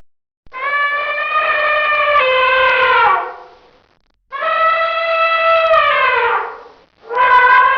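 Elephant trumpeting: two long, held calls, each about two and a half seconds, with the pitch sliding down at the end of each. A third call starts just before the end.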